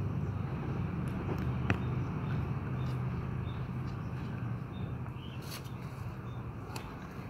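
A steady low rumble runs underneath, with a few faint sharp clicks and ticks from cats eating out of plastic tubs.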